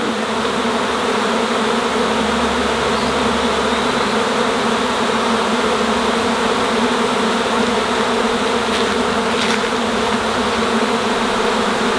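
A large honey bee swarm buzzing all around in a loud, steady, dense hum, just after the swarm has been shaken off its branch into a box.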